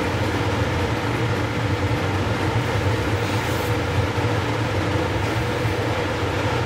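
Laminar-flow clean bench's blower fan running with a steady airflow rush and a constant low hum.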